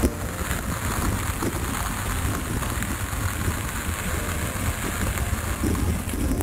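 A car driving slowly past at close range on an asphalt lane, with wind rumbling on the microphone as a steady noise throughout.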